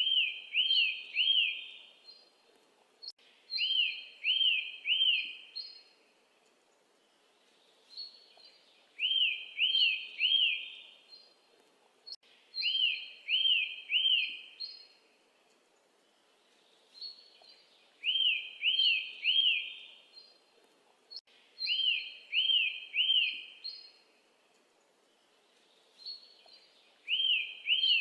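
Songbird singing: a phrase of three quick, downward-sweeping whistled notes with higher chirps above them. The phrase repeats in an even cycle about every four to five seconds.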